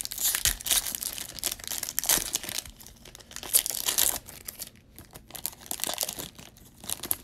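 Foil wrapper of an NFL Optic trading card pack being torn open and peeled back by hand: irregular crinkling and tearing, busiest in the first half.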